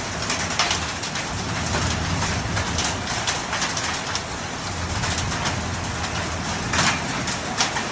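Hail coming down hard: a steady, dense roar of stones landing, with many sharp clicks of single hailstones striking and a few louder hits near the end.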